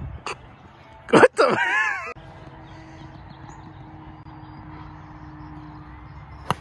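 A person's loud, wavering yell about a second in, lasting under a second and cut off abruptly, over a low steady outdoor background.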